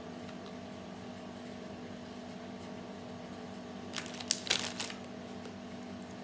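Plastic lolly packet crinkling in a short burst of crackles about four seconds in, over a steady background hum.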